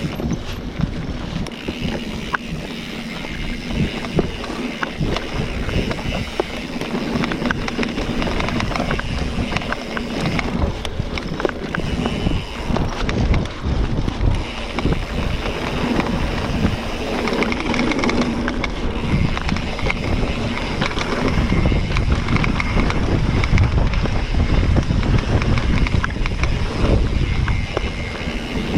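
Mountain bike riding fast down a dirt trail: tyres rolling over the ground with the bike's chain and parts rattling, and wind buffeting the microphone, which grows heavier about two-thirds of the way through.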